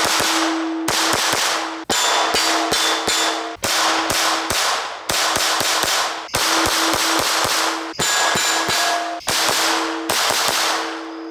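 Ruger SR22 .22 LR pistol firing CCI Velocitor rounds in quick strings of shots, with steel targets ringing after the hits.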